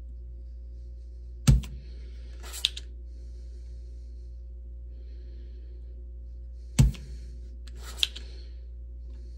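Yihua 929D-V desoldering iron's spring-loaded plunger firing twice, about five seconds apart, each time with a sharp snap as the release button is pressed and the melted solder is sucked up. Each snap is followed about a second later by a lighter click.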